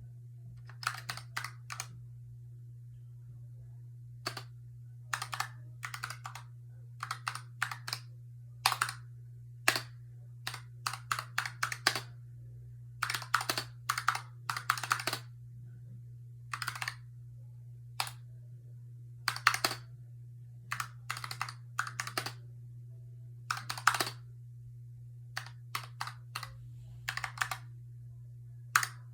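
Typing on a Razer Huntsman Tournament Edition keyboard with linear optical switches: uneven clusters of key clacks broken by short pauses, over a steady low hum.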